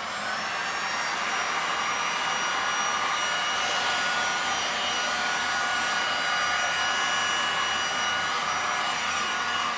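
Electric heat gun running steadily, a fan-blown rush of hot air with a faint steady whine, aimed at wet epoxy resin paint on a tile to push it into lacing.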